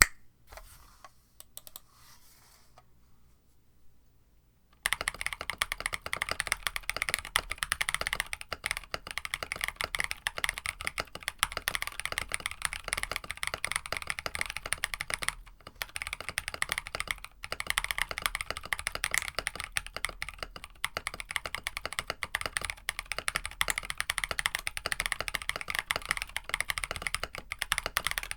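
Fast, continuous typing on a KBD67 Lite mechanical keyboard with Musetsu tactile switches on an FR4 plate, starting about five seconds in, with a couple of brief pauses.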